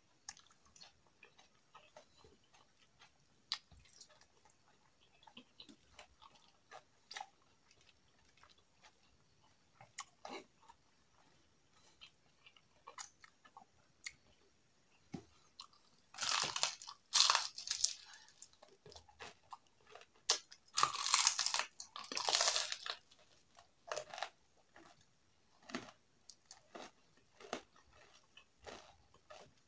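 Close eating sounds: soft chewing and small mouth clicks, with two stretches of loud crunching of crispy fried chicken skin about halfway through.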